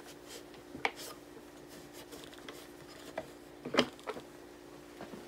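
Light clicks and taps of a cloth and tool working against the steel receiver of an M1 rifle as its grooves are wiped clean, the sharpest tap about two-thirds of the way through, over a faint steady hum.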